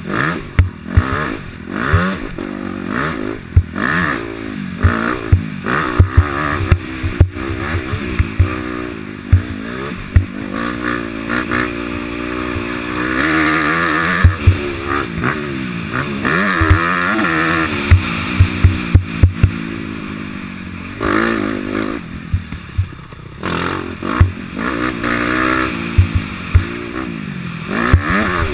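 2012 Honda CRF250 four-stroke single-cylinder dirt bike engine being ridden hard, revving up and falling back again and again as the throttle opens and closes through the gears, held high for several seconds around the middle. Frequent sharp thumps run through it.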